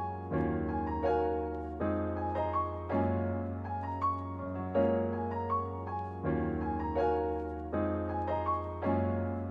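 Background piano music, gently repeating chords over a held low bass note.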